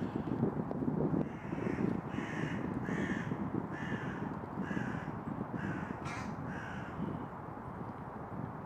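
A bird calling about seven times in a row, roughly once every 0.7 seconds, with a steady low rustle underneath.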